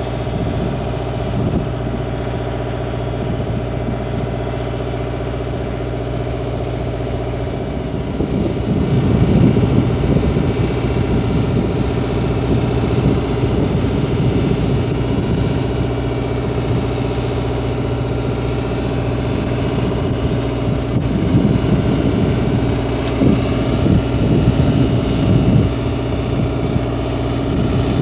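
Truck engine running steadily, making a lot of noise; it gets louder about eight seconds in.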